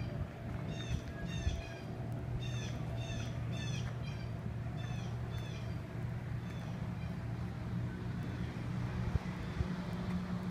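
Crows cawing, a run of repeated harsh calls that thins out after about six seconds, over a steady low drone.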